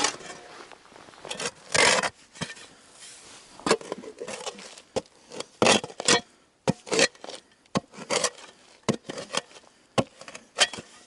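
Irregular scraping and digging strokes of a tool working the earth around a buried steel car wheel rim, with a few longer rasping scrapes among the short strikes.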